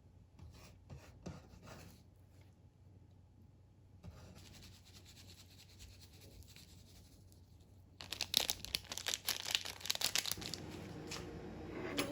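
Crinkling, rustling and scratchy handling noises with scattered clicks, faint at first and much louder from about eight seconds in.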